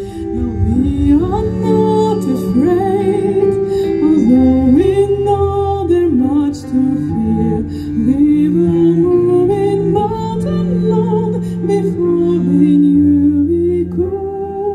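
A woman singing a slow melody with held, wavering notes into a microphone, accompanied by piano.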